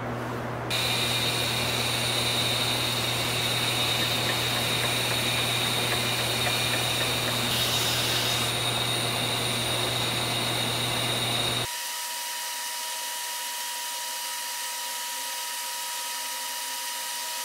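2x72 belt grinder running as a steel knife edge is sharpened against the belt: a steady motor hum with a loud grinding hiss and high whine joining about a second in, briefly surging near the middle. It cuts off abruptly about two-thirds through, leaving quieter room tone with a faint steady whine.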